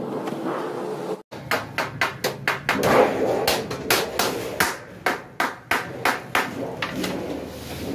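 Hammer blows on sheet steel, a rapid irregular run of about three to four strikes a second, starting about a second in.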